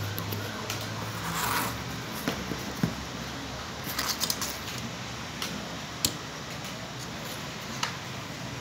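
Scattered clicks, taps and short rustles of a Honda CR-V power-window regulator's steel cables and cable housings being handled and laid on cardboard.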